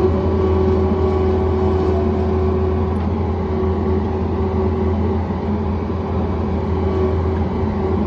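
John Deere 317 skid steer's engine running steadily, a constant low hum with a few steady tones above it.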